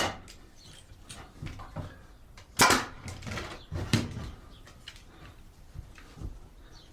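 Pneumatic brad nailer shooting 2-inch brad nails into the corners of the table boards: a sharp shot right at the start, a loud one about two and a half seconds in and a lighter one about a second later, with small clicks and knocks of handling in between.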